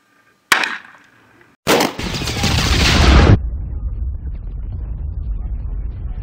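A single gunshot about half a second in, ringing out briefly. Then an intro sound effect: a loud rushing swell that builds for about a second and a half and cuts off sharply, leaving a steady low rumble.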